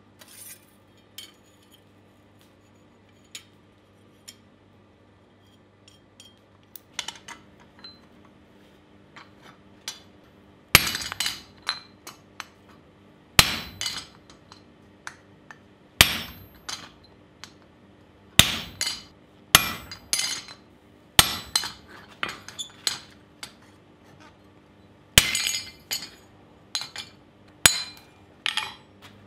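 Hammer blows on a wooden-handled chisel set on hot steel on an anvil, sharp ringing metal clanks every couple of seconds, some followed by a few lighter taps. For about the first third there are only a few faint clinks.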